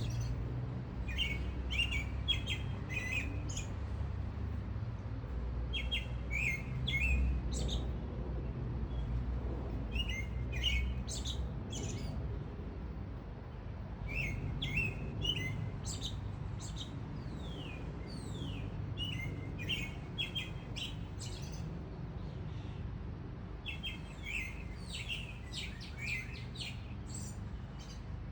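Songbirds singing: phrases of quick high chirps and short downward-sweeping notes, broken by pauses of a few seconds, over a steady low background rumble that eases about halfway through.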